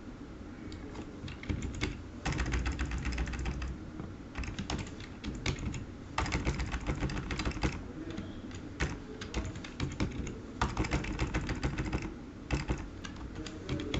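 Computer keyboard being typed on in quick bursts of keystrokes with short pauses between them.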